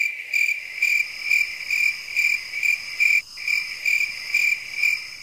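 A high, steady chirring trill that swells and fades about twice a second. It cuts in suddenly out of silence, like a nocturnal animal chorus.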